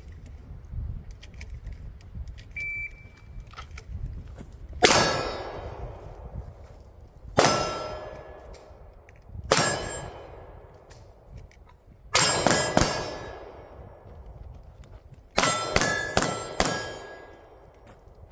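A short shot-timer beep, then pistol shots ringing steel targets. Single shots about five, seven and a half and nine and a half seconds in are followed by two quick strings of three and four shots near the end, each impact leaving a metallic ring.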